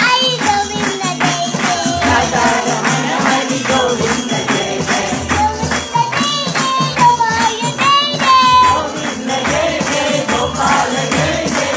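A child's voice singing a devotional song over a steady beat of jingling hand percussion.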